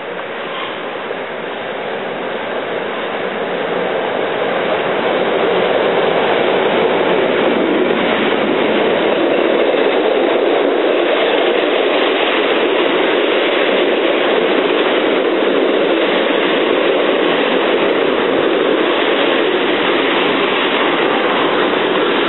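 EP07 electric locomotive hauling a passenger train past at speed, followed by its coaches rolling by close at hand with steady wheel-on-rail noise. The sound grows louder over the first few seconds as the locomotive approaches, then holds steady as the coaches pass.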